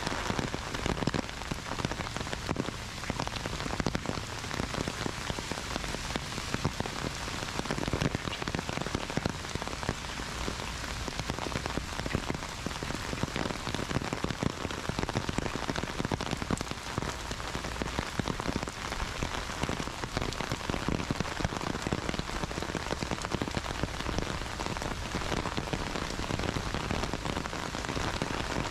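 Heavy rain falling steadily: a dense, even hiss with many separate drop hits heard through it.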